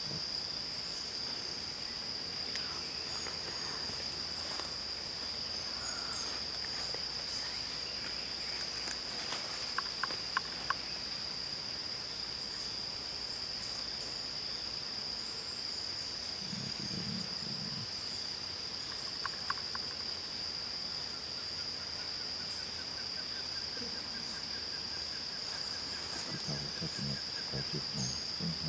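A steady, high-pitched insect chorus, one unbroken tone throughout. A few short faint ticks stand out about ten seconds in.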